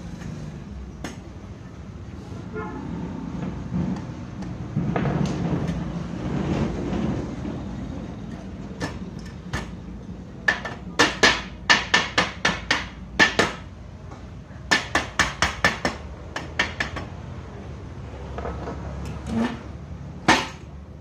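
Quick, sharp hammer taps on a wooden window sash, in two runs of about a dozen strikes each at roughly four a second, with a few single knocks near the end. A broader rumbling noise swells and fades about five seconds in.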